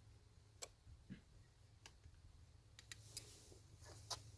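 Faint, scattered light clicks of a worm-gear hose clamp being fitted over the intake's rubber coupler, about half a dozen over a few seconds.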